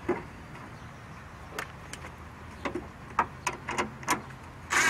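Scattered sharp clicks and knocks of a car horn and its metal mounting bracket being handled and fitted. A louder rattling burst comes near the end, as a tool goes onto the mounting bolt.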